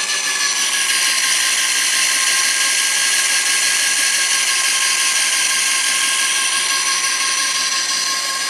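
Electric drill running steadily, spinning an Ampair 600 wind turbine on a bench. The turbine turns with no load yet on its output, so the whine is steady, with a slight dip in pitch about half a second in.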